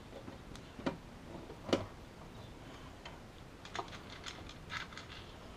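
Light clicks and knocks of metal parts being handled while a power supply is fitted to its mounting bracket with screws: two knocks about a second apart near the start, then a quick cluster of small clicks later.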